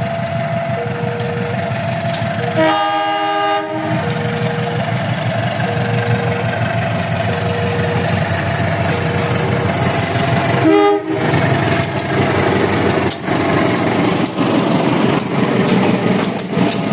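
CC 201 diesel-electric locomotive sounding its horn: one blast of about a second, then a shorter blast some eight seconds later, over the steady rumble of the train. A thin beep repeats about once a second.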